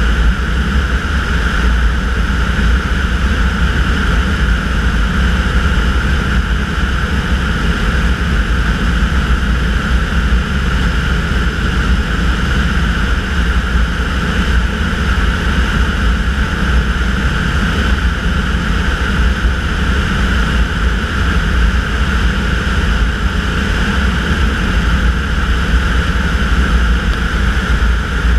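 Tanarg microlight trike's engine and pusher propeller running steadily in cruising flight, an even drone with no change in pitch.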